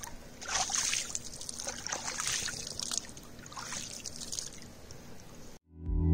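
Lake water sloshing and splashing in three or four surges, then cut off abruptly; music starts right at the end.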